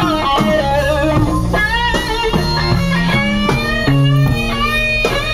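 Guitar-led music with a bass line playing from the truck's car stereo, the guitar notes bending and wavering.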